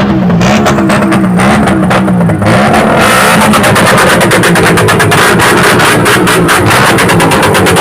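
Loud, distorted electronic dance music with a fast, steady drum beat and a wavering bass line, played at full volume through a sound system for a sound check.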